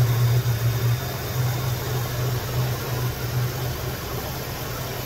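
2004 Dodge Ram 1500 pickup's engine idling, with a low hum that is strongest at first and eases off about three and a half seconds in.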